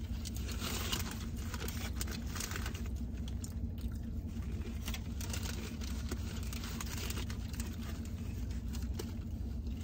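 Food packaging crinkling and chips being crunched and chewed close up, in irregular small clicks and crackles, over a steady low hum from the car.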